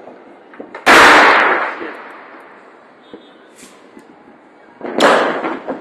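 Fireworks exploding: two loud bangs, one about a second in and another near the end, each echoing away over a second or so, with a few faint pops in between.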